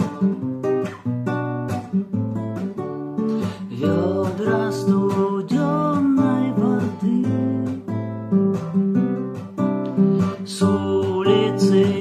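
Acoustic guitar strummed in a steady rhythm of chords, with a melody line bending in pitch over it from about four seconds in: an instrumental passage of a song with no singing.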